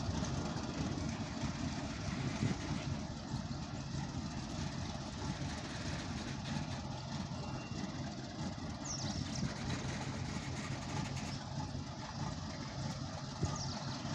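Slow goods train of covered wagons rolling past: a steady low rumble of wheels on rail, mixed with the distant running of the WDG4G diesel locomotive's engine. Two brief high squeals come in the second half.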